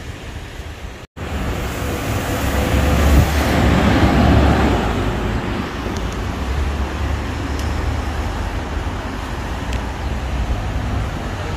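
Street traffic noise with a deep rumble, swelling loudest as a vehicle passes about two to five seconds in.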